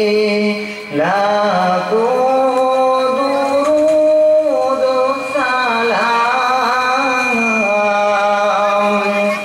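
Male voice singing an Islamic devotional gojol in long, drawn-out notes that bend in pitch, with a short break about a second in.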